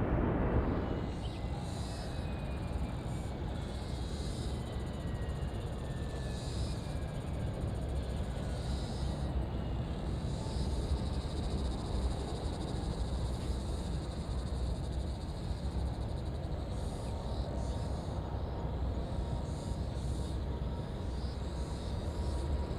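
Boeing 787 moving away after passing, its low jet rumble dropping about a second in and then going on steadily in the distance. A faint engine whine falls slowly in pitch over the first several seconds.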